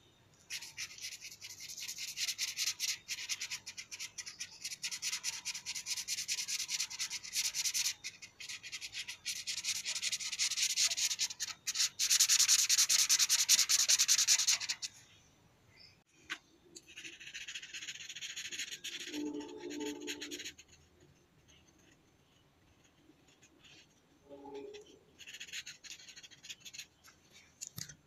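Felt-tip marker scribbling on paper in rapid back-and-forth strokes, colouring in a picture. It is loudest about halfway through, then comes in shorter spells with pauses between.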